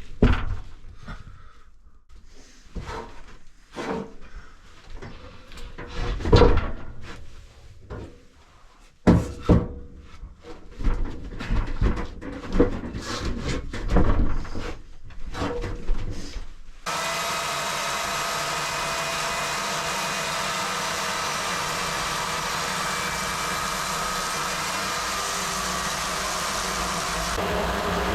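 Irregular knocks and thuds of wood for most of the first two-thirds. About two-thirds in, a chainsaw cuts in suddenly and runs steadily, milling the walnut log.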